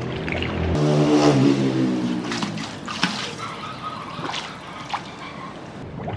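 Swimming-pool water lapping and dripping around people ducking under for a breath-holding contest, with scattered small splashes and drips. A steady humming tone runs through the first two seconds.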